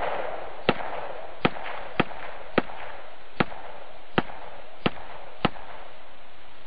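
A run of eight sharp gunshots, one every half second to second, each with a short echo, over a steady hiss.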